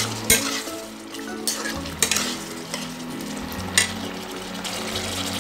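A metal spatula stirring a bubbling chicken and onion gravy in a metal pan, sizzling throughout, with a few sharp clinks as the spatula knocks the pan.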